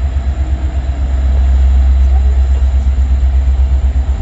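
A train passing with a loud, steady low rumble.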